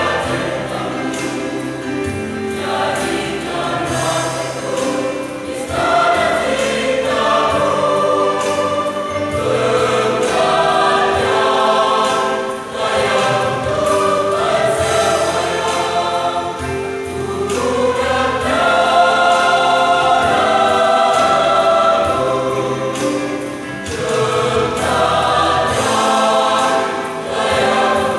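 Mixed choir singing a worship song in sustained phrases, with brief dips between phrases.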